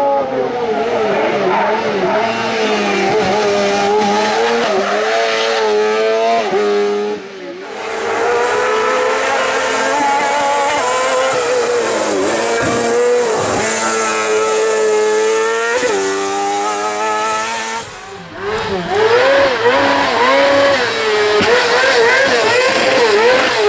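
Motorcycle-engined kart-cross racers running hard, the high-revving engines rising and falling in pitch with each gear change and lift of the throttle. The sound drops away briefly twice, about seven and eighteen seconds in, before another engine comes in revving quickly up and down.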